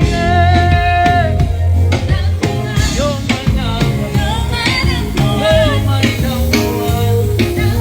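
Bongo Flava song playing loud: a sung vocal over a drum beat and heavy bass.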